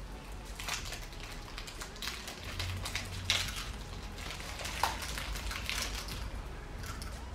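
Crinkling and rustling of a Pokémon trading-card booster pack's foil wrapper as it is torn open and handled, in irregular crackles with a few sharper ones.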